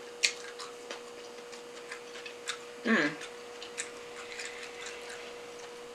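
Scattered light clicks and taps from handling food and utensils while eating sushi, with a brief murmured vocal sound about halfway through, over a faint steady hum.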